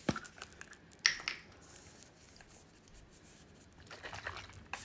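Facial toner mist spray bottle handled: a sharp click, then a brief spray hiss about a second in, followed by faint small clicks and handling noises.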